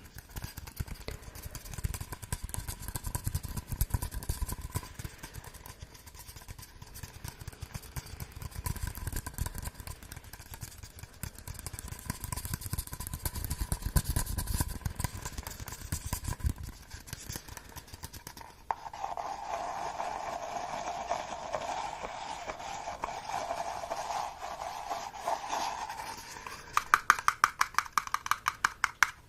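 Close-miked ASMR trigger sounds: crackly scratching and rubbing on some object, changing about two-thirds of the way through to a smoother steady rubbing, then rapid tapping at about six taps a second near the end.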